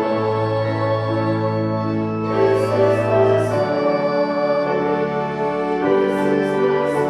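A hymn sung with organ accompaniment: held chords over a sustained bass note that changes partway through, with the sung words' 's' sounds coming through twice.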